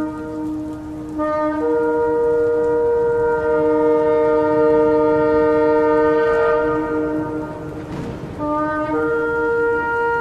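Several shofars blown at once in long sustained blasts at two different pitches, overlapping. About eight seconds in the blasts briefly drop away with a breathy rush, then a fresh blast starts.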